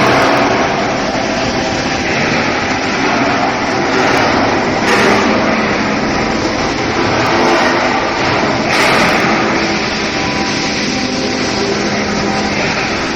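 Industrial machinery running steadily: a loud, even noise with faint steady tones running through it.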